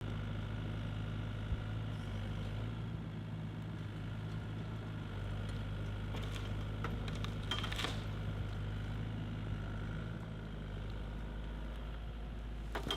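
Excavator diesel engine running steadily under the tree shear work. A run of sharp cracks comes about six to eight seconds in.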